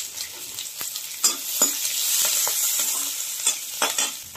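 Chopped onions sizzling in hot oil in a steel kadai, stirred with a metal skimmer spoon that scrapes and clicks against the pan several times.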